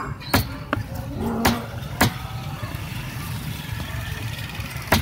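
A heavy cleaver chopping fish on a wooden stump block: several sharp knocks in the first two seconds and one more at the very end, over a steady low rumble.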